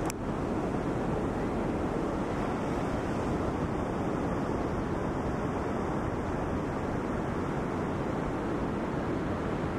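Heavy storm surf: large waves breaking, heard as a continuous, even rush of surf with no single distinct crash.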